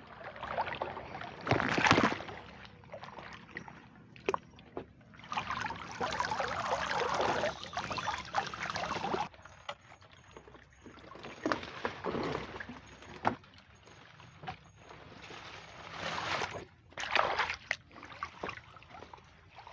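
Water sloshing and splashing against a small wooden boat, with a few sharp knocks on the hull and a longer run of splashing about five to nine seconds in.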